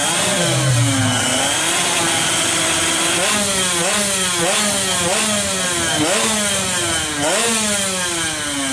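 Drag-racing motorcycle engine being blipped repeatedly while held stationary before launch, its pitch swooping up and falling back over and over. From about three seconds in the blips come quicker, roughly every two-thirds of a second.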